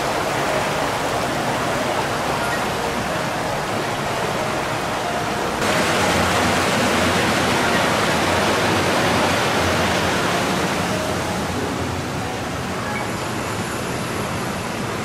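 Canal water rushing steadily through a stone channel. It gets louder and brighter about five and a half seconds in.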